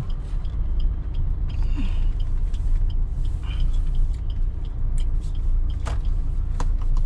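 Steady low rumble of engine and road noise inside a Maruti Suzuki Ciaz's cabin, with a few sharp clicks in the last couple of seconds.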